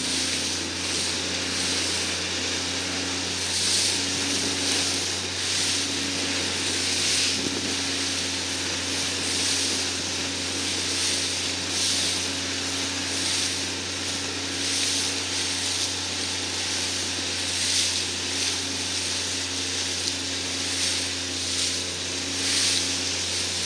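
Motorboat engine running steadily under rushing, hissing water and spray from the hull moving at speed. The spray noise swells and fades every second or two as the boat meets the waves.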